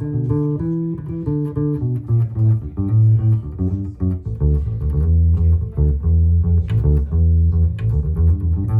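Electric bass guitar played through an amp: a run of plucked notes in a continuous riff.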